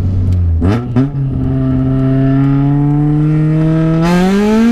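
Car engine pulling in gear with its exhaust cutout valve open, the exhaust note louder and harsher ("mais intenso"). About a second in the engine note jumps up briefly and settles, then climbs steadily as the car accelerates, rising faster near the end.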